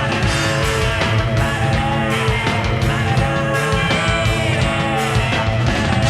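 Loud rock music with distorted guitars and a steady drum beat.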